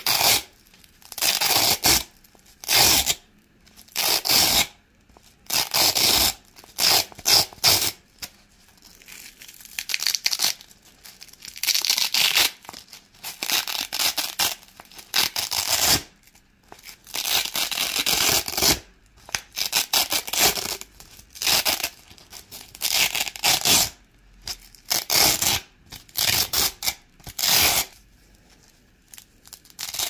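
Velcro hook-and-loop pads being peeled apart over and over, each pull a crunchy ripping crackle lasting up to about a second, about one a second with short quiet gaps between.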